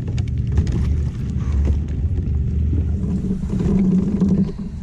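Steady low rumble of wind buffeting the camera microphone, with scattered light clicks and knocks from handling a freshly caught bass aboard a plastic kayak.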